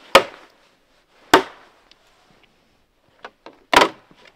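Three loud, sharp knocks, the first two over a second apart and the third, a quick double hit, near the end, with a few faint clicks just before it.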